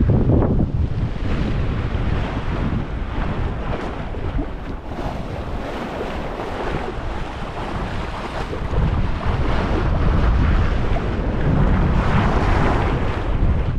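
Water rushing and splashing along the hull of a sailboat under sail, with wind buffeting the microphone. The rush swells louder about two thirds of the way through.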